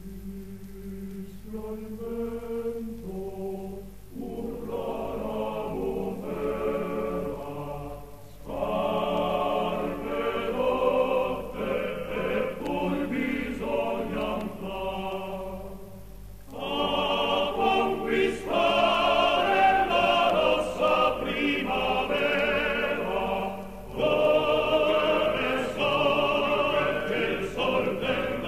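A choir singing a slow piece in long phrases. It begins softly, grows louder over the first half, and pauses briefly between phrases. A steady low hum runs underneath.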